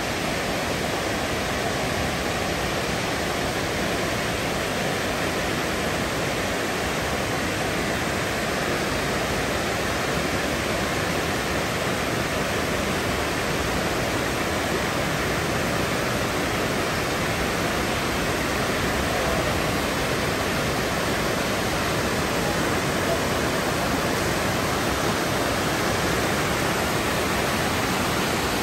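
Steady, unbroken rushing noise of falling water.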